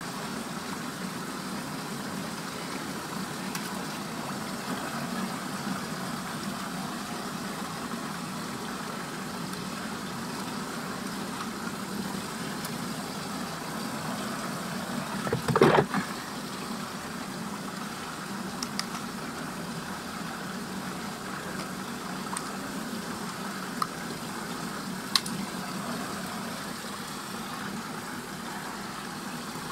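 Steady rushing of water swirling in a whirlpool and draining down its vortex hole. About halfway through there is a short, louder splash as a small toy is pulled into the vortex, and a few faint clicks come later.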